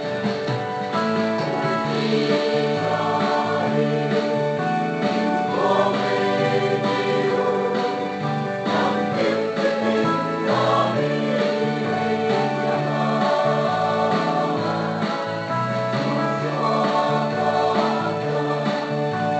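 Music: a song with singing over steady instrumental backing.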